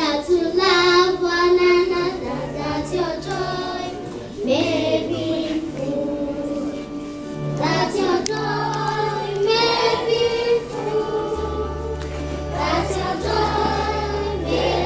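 A group of children singing a Christian song together in chorus, over held low accompaniment notes.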